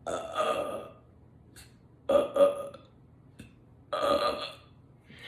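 A woman belching three times: a burp about a second long, a shorter double burp about two seconds in, and another long burp near four seconds in.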